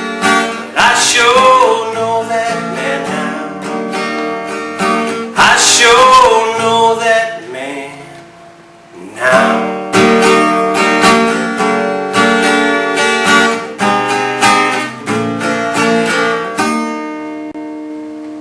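Acoustic guitar strumming the outro of a country song, with a dip in the playing about halfway through, then ending on a chord left to ring out and fade.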